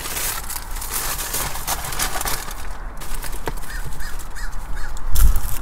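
Crackling and rustling of burger wrappers and buns being handled while the burgers are stacked, with four quick, evenly spaced bird calls about four seconds in. A dull low thump near the end is the loudest sound.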